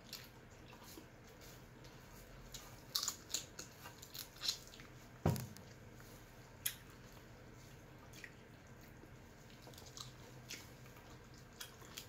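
Shrimp being peeled and eaten by hand: scattered small clicks and crackles, busiest from about three to five seconds in, with one louder knock just after five seconds.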